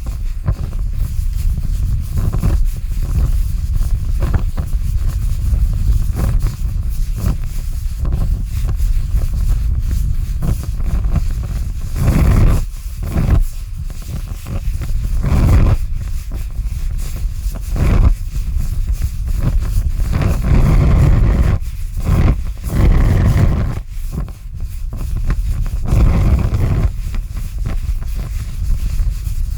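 Large fire burning: a loud, low rumble that swells in uneven surges every few seconds, with scattered crackles.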